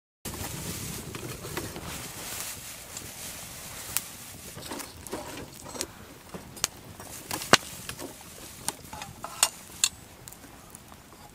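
Wood fire burning in a small fire pit, starting a moment in: a steady hiss of flames with sharp crackles and pops scattered through, the loudest a little past the middle.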